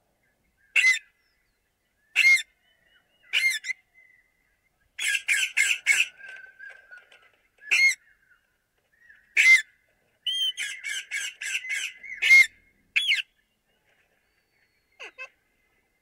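Parakeets squawking: sharp, shrill calls, some single and spaced a second or more apart, with two rapid runs of about five calls each, about five seconds in and again about ten seconds in.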